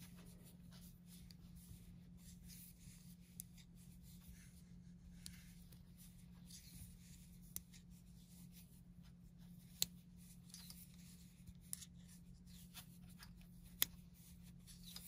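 Faint knitting sounds: soft rubbing of cotton yarn over metal knitting needles as stitches are purled, with a sharp click of the needle tips every two seconds or so.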